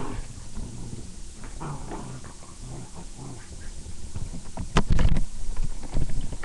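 A dog and a cat play-fighting: scuffling and short animal vocal sounds. Then come loud bumps from the camera being handled, a cluster about five seconds in and another about a second later.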